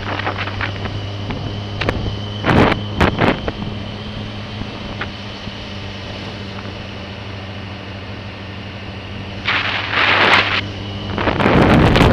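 Motorcycle engine running at a steady, even speed under wind noise on the microphone. Gusts of wind buffet the microphone about two and a half seconds in, again around ten seconds, and from about eleven seconds on.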